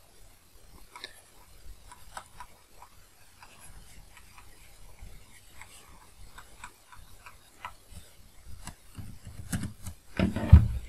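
Stylus writing on a pen tablet: a run of faint, irregular light ticks and scratches as words are handwritten. Near the end a short burst of a man's voice is the loudest sound.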